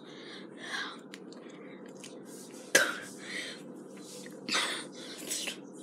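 A boy coughing and clearing his throat as the Tabasco hot sauce he has just swallowed burns: one sharp cough a little before halfway, then a couple of softer coughs near the end.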